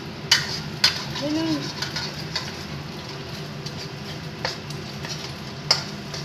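Egg and green onion sizzling in a wok as a spatula stirs them, with sharp clacks of the spatula against the pan about half a second and a second in and twice more near the end.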